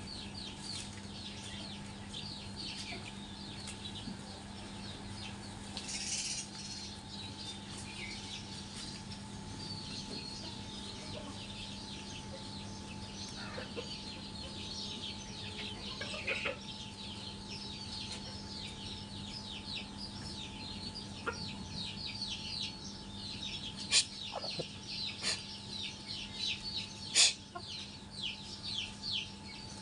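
A brood of chicks peeping continuously in quick, high, falling chirps, with a hen clucking now and then. A steady low hum runs underneath, and a few sharp clicks come near the end.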